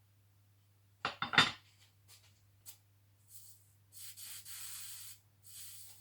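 A quick clatter of clicks and rustles about a second in, then three bursts of hissing, the longest about a second: a soldering iron sizzling on acid flux while soldering a flashlight LED. A faint steady mains hum runs underneath.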